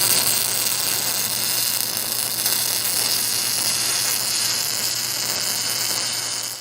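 Welding arc laying tack welds to hold a flange to a pipe: a steady hissing buzz over a low hum.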